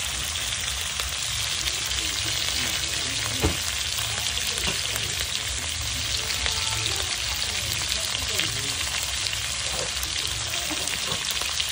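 Sliced onions and green beans sizzling in an aluminium wok, stirred now and then with a slotted metal spatula. There is a steady frying hiss with one sharp click about three and a half seconds in.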